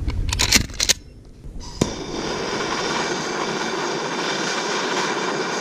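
A few clicks and clattering, then a MAP gas torch hissing steadily from about two seconds in, following a sharp click.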